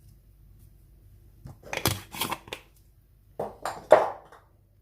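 Two short bursts of scraping and clatter from kitchen utensils over a cooking pot, the second burst the louder, with a faint steady low hum underneath.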